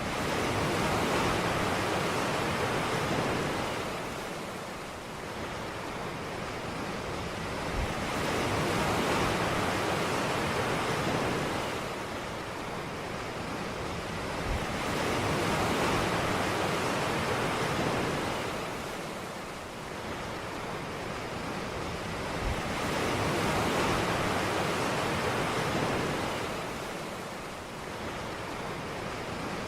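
Ocean surf breaking and washing up on a beach. Each wave swells and then eases off, about every seven to eight seconds, four times in all.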